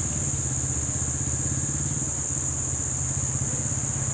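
Small dirt bike engine running at a steady, low speed as it is ridden slowly, without revving.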